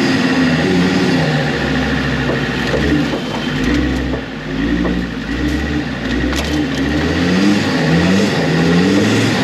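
Off-road competition car's engine revving up and easing off over and over as it is driven through mud, with a few sharp clicks and knocks midway.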